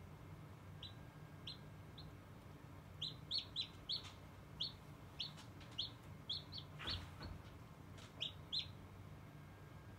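A chicken chick peeping at hatching time: a quick, irregular series of short, high, falling peeps, some doubled, busiest in the middle, with one soft bump about seven seconds in. A low steady incubator hum runs underneath.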